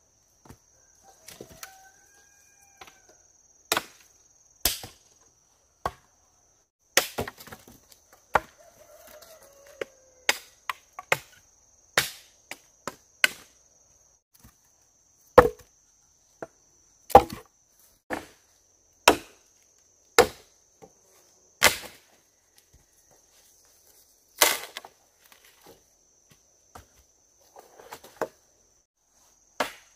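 Sharp chopping knocks on wood, irregular, roughly one every second or two with a few longer pauses, over a steady high insect trill.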